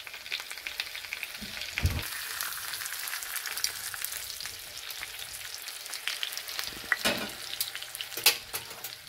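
T-bone steak sizzling in butter with crushed garlic in a frying pan: a steady crackling hiss with frequent pops of spitting fat. A dull knock about two seconds in, and a few sharper clicks near the end.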